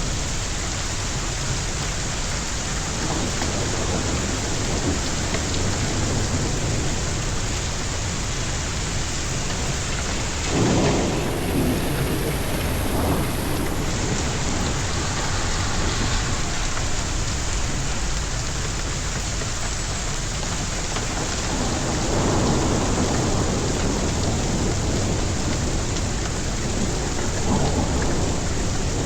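Heavy rain falling steadily in a thunderstorm, with thunder rumbling up about ten seconds in and again past twenty seconds.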